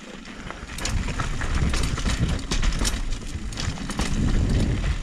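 Mountain bike rolling down a rough dirt forest trail: the tyres rumble over soil, stones and leaf litter while the bike clatters and rattles over the bumps. It grows louder over the first second or so as the bike gathers speed.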